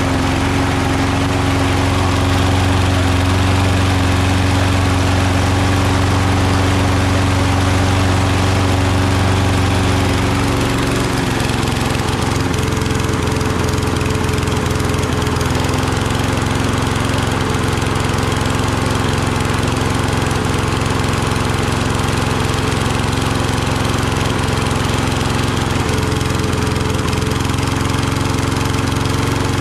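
Toro Recycler Personal Pace walk-behind mower's Kohler XT675 single-cylinder engine running steadily at speed. About ten seconds in the tone changes as the tipped-up mower is set back down on its wheels, and it runs on evenly.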